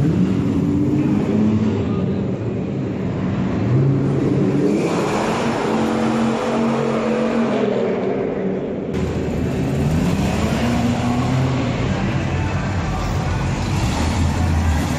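Car engines revving up and down, their pitch rising and falling, as cars are driven through sliding turns. The sound changes abruptly a third and two-thirds of the way through.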